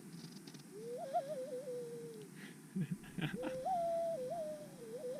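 A person imitating a mourning dove call: two calls, each opening with a quick wavering flutter and then held and sliding down in pitch. A few short knocks come between them, about three seconds in.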